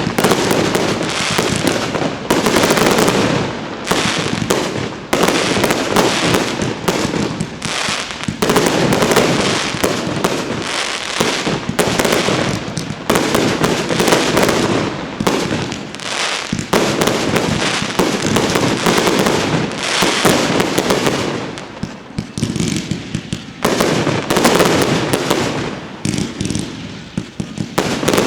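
Fireworks display: a dense, continuous barrage of bursts and crackling, coming in loud volleys a few seconds long with brief dips between them.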